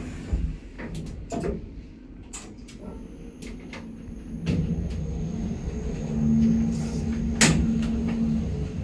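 Kone MonoSpace passenger lift's sliding doors closing, with several clicks and knocks. About halfway through a steady low hum starts as the car travels, and there is one sharp click near the end.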